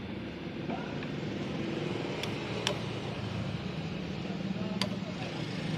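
Three short, sharp clicks against a steady low hum: hand tools and parts knocking while the front disc-brake caliper of a motorcycle is refitted.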